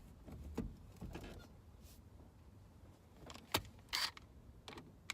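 Scattered light clicks and taps of small parts being handled during hands-on work, with a sharper click about three and a half seconds in and a brief scrape just after four seconds.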